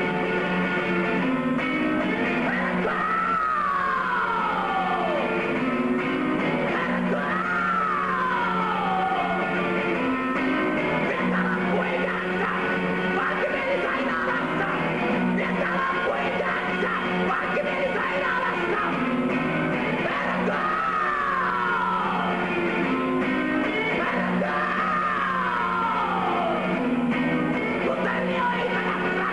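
Electric guitar played live through an amplifier in a rock style, over a held low note, with four long sliding notes that fall in pitch.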